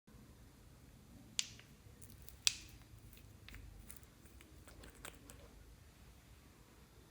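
Clear slime being handled up close, with sharp sticky clicks and pops. Two loud ones come about a second and a half and two and a half seconds in, and fainter ones follow.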